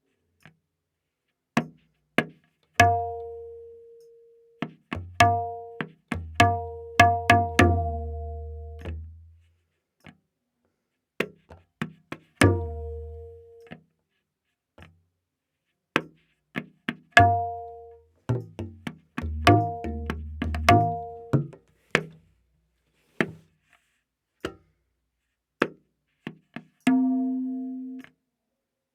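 Tabla playing a slow vilambit ektaal theka. The right-hand drum (dayan) rings clearly at A#, and the left-hand bayan gives deep bass strokes that sustain, with sparse crisp strokes in between.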